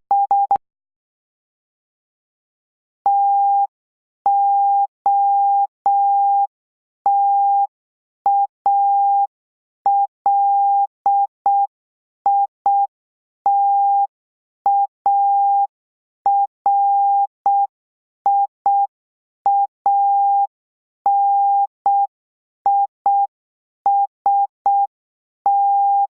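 Morse code sidetone: a single steady beep keyed slowly in dots and dashes, starting about three seconds in after a pause. It spells out the practice word "totalitarianism", with the opening letters T-O-T-A-L readable in the pattern.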